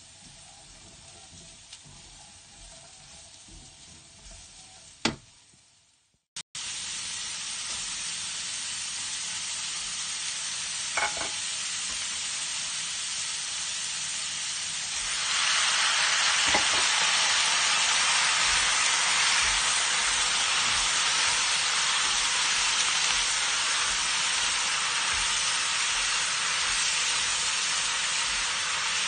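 Fuzzy melon strips and dried shrimp sizzling in a hot pan as they are stir-fried with a silicone spatula. The sizzle grows louder about halfway through, and the spatula knocks on the pan now and then.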